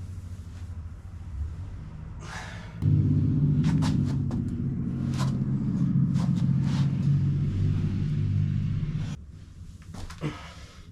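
A loud, steady low mechanical hum starts abruptly about three seconds in, runs for about six seconds and cuts off suddenly, with a few sharp clicks over it; a fainter low hum lies underneath before and after.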